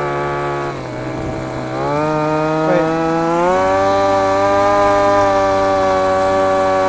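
Small vehicle motor running at a steady pitch. The pitch sags about a second in, then climbs in two steps. This is the motor the rider is testing for a fault: he says it stops pulling when driven through water, though it runs fine at full throttle on dry ground.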